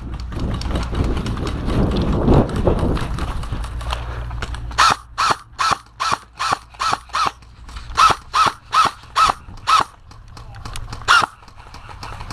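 Airsoft rifle fired as single shots in quick succession: about fourteen sharp cracks at roughly three a second, then one more shot near the end. Before the shooting, a few seconds of low rumbling movement and wind noise on the camera.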